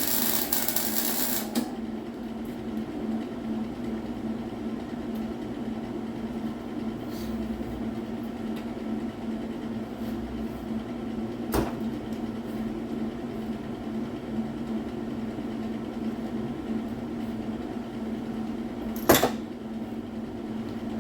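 A welding arc crackling with a loud hiss, cut off about a second and a half in, then a steady hum with two sharp clicks, the louder one near the end.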